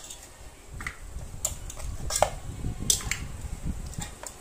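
Goat trotters being dropped by hand into a metal pressure cooker, their bones knocking on the pot and on each other in irregular clicks and clunks, about half a dozen of them.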